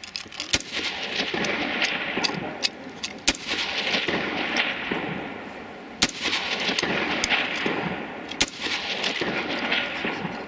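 Rifle shots at a target range: four loud single shots spaced about two and a half seconds apart, with fainter cracks in between.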